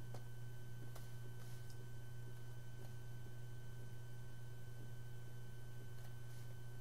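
Steady low hum with a faint high whine above it, and a few faint clicks.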